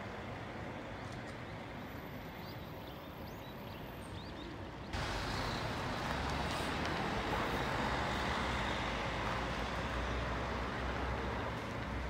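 Outdoor city ambience: steady traffic noise with a low hum underneath, which jumps suddenly louder about five seconds in. A few faint high chirps are heard before the jump.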